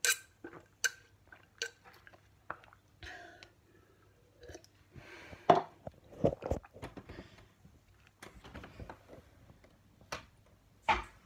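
Gulps and swallows of someone drinking from a cup, a sharp mouth click about every second at first, followed by louder knocks and rustling from the phone being handled.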